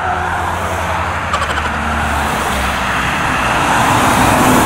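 Highway traffic going past close by: a steady rush of tyres and engines that swells near the end as a truck passes in the near lane.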